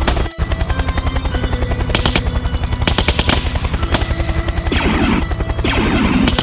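Instrumental hip-hop-style beat with a rapid, stuttering low pulse and sharp clicks, which give it a machine-gun-like rattle. Two short bursts of hissing noise come near the end.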